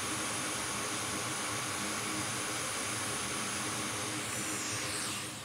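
Hot air rework station blowing a steady hiss of air while reflowing tiny surface-mount parts on a logic board. Near the end its pitch falls and the airflow dies away as it winds down.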